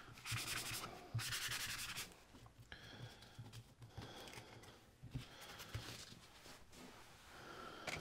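A plastic color filter rubbed face down on an alcohol-soaked paper towel over a workbench to scrub off old foam residue: a dry scrubbing hiss, two loud strokes in the first two seconds, then fainter rubbing.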